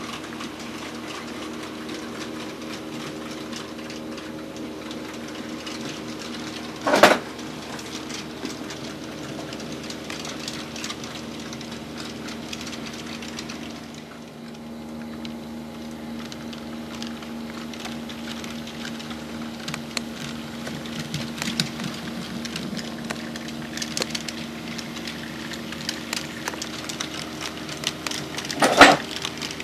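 HO-scale model railroad running: a steady small-motor hum with light ticking from the track. The hum's pitch drops slightly after a short dip about halfway through. Two brief loud sounds stand out, one about seven seconds in and one near the end.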